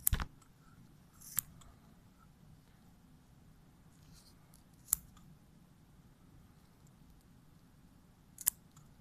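Metal dissecting scissors snipping in a few sharp clicks: a loud one with a dull knock at the start, then single snips about a second and a half in, near five seconds and near the end. A faint low hum runs underneath.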